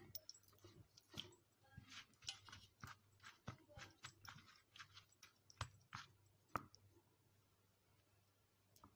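Faint, irregular soft crunches and clicks of hands pressing and turning raw chicken pieces in a flour-and-seed coating; they thin out for the last couple of seconds.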